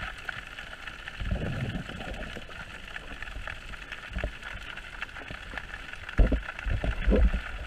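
Muffled underwater sound picked up by a submerged camera: a steady water hiss with several low thumps, the loudest about six seconds in.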